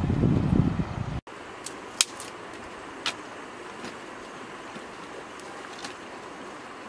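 Gusty low rumble of wind on the microphone that cuts off abruptly about a second in. It gives way to a quiet, steady outdoor background with a few sharp clicks.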